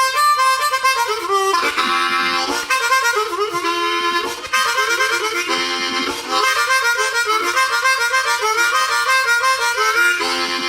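Harmonica music: a lively tune of quickly changing notes and chords.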